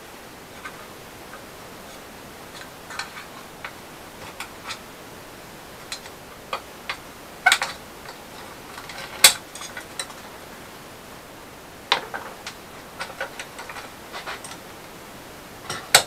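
Irregular small metallic clicks and taps from a screwdriver working at a rusted steel sump-pump part clamped in a bench vise, with a few sharper knocks around the middle.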